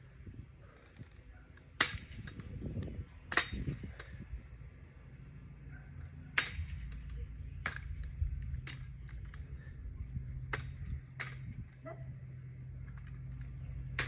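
Sharp slaps and knocks of hands striking a non-firing drill rifle during rifle drill movements, about eight single strikes spaced irregularly, over a steady low hum.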